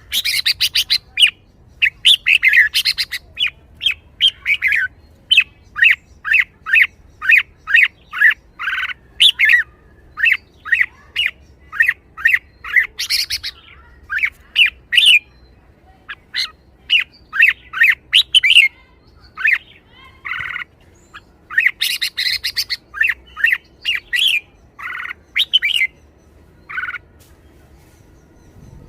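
Red-whiskered bulbul singing: a string of short, bright phrases about one a second, broken near the start and again about three-quarters of the way through by rapid chattering runs.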